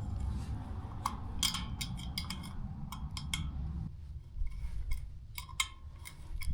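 Sharp, irregular metallic clicks and clinks of lock nuts being tightened by hand tool onto the mounting studs of a condenser fan motor. A low rumble underneath stops about four seconds in.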